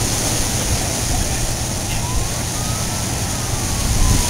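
An emergency vehicle siren wailing faintly, one slow rise and fall in pitch, over a steady noise of wind and surf.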